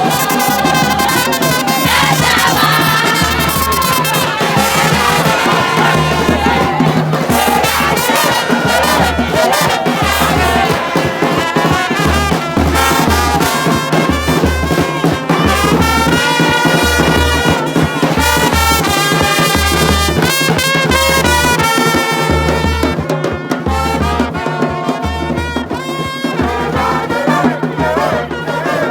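Loud music with a heavy, regular bass beat.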